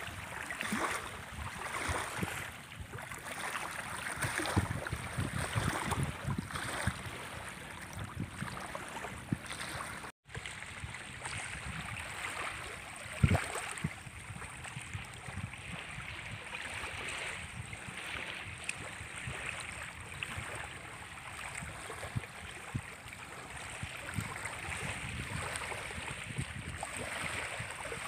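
Small freshwater waves lapping and washing up a sandy reservoir shore, with wind gusting on the microphone. The sound cuts out for a moment about ten seconds in, and there is a single sharp knock a few seconds later.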